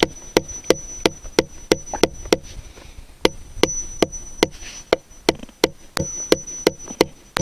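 Hammer driving a 1¾-inch steel fencing staple into the base of a wooden fence post: sharp, evenly paced blows about three a second, in three runs broken by short pauses.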